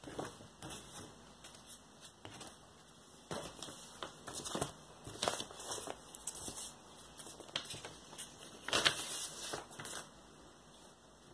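Paper and card rustling and sliding as a printed insert and a paper inner sleeve are handled and lifted from a vinyl box set. Near the end comes a louder, longer swish as the LP is drawn out of its paper sleeve.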